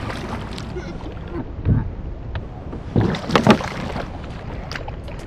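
A hooked smallmouth bass thrashing and splashing at the surface beside a kayak, in short bursts, with the loudest splashes about three seconds in. A steady low rumble runs underneath.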